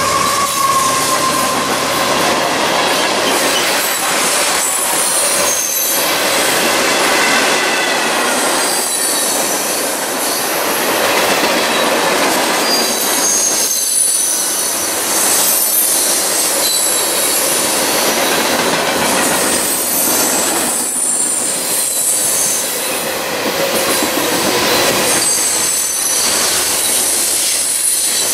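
Freight train's tank cars and covered hoppers rolling past at speed: a steady rumble and clatter of steel wheels on the rails, with high wheel squeal coming and going.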